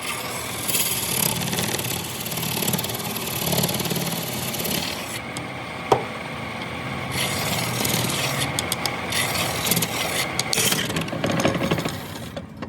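Power tool working wood: a motor hum under scraping and rubbing that breaks off and resumes several times, with one sharp click about six seconds in.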